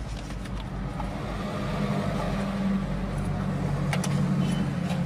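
Engine running steadily at idle, a low even hum, with one sharp click about four seconds in.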